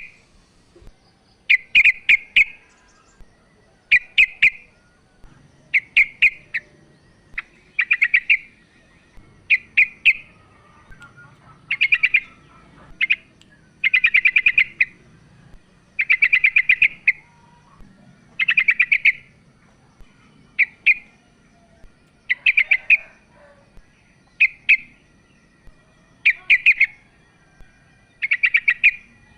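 Female yellow-vented bulbul (trucukan) giving its calling chatter: short, rapid, buzzy phrases repeated about every two seconds, the kind of female call used as a lure to draw males and get a quiet male singing.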